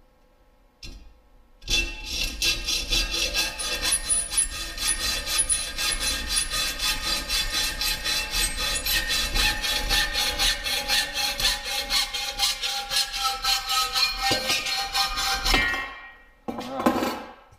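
Hacksaw cutting aluminum bar stock clamped in a bench vise: fast, even back-and-forth strokes that start about a second and a half in and stop about two seconds before the end. A brief knock follows shortly after the sawing stops.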